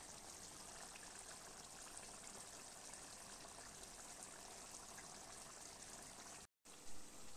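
Vegetable curry simmering in a pan: a faint, steady hiss with fine small pops of bubbling gravy. The sound cuts out abruptly near the end.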